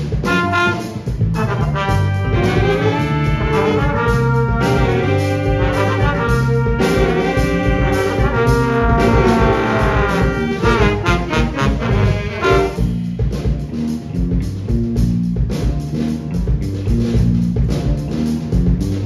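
Big band playing live, saxophone, trumpet and trombone sections over bass and drums, in a funk tune. About halfway through, the horns play phrases that fall in pitch. They thin out about twelve seconds in, leaving the bass line and drums with lighter playing above.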